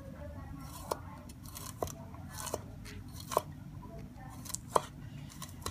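Cleaver chopping long green beans on a round wooden chopping board: about seven sharp knocks of the blade striking the board, unevenly spaced roughly once a second, each with a crisp crunch as the beans are cut through.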